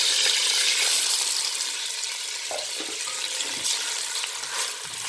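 Hot desi ghee with green cardamom pods sizzling and crackling in a steel pot. About halfway in come a few soft knocks as sugar goes into the ghee and a wooden spoon stirs it.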